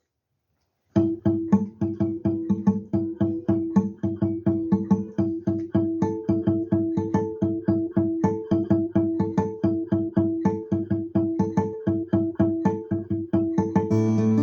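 Guitar playing a quick, even rhythm of short damped strokes, about four a second, starting about a second in. Near the end it opens into fuller, ringing strums.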